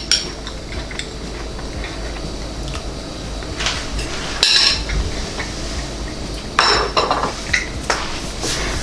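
Cutlery scraping and clinking against a plate in a few short strokes, as a bite of quick bread is cut and taken.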